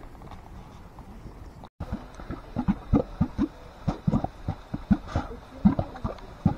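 Mud pot bubbling: thick hot mud plopping in short, irregular low pops, several a second, from about two seconds in. Before that there is only a steady low rush.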